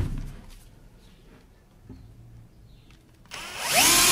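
Mostly quiet, with a few faint handling sounds, until about three seconds in, when a cordless drill spins up with a rising whine and then runs steadily, drilling into a plywood panel.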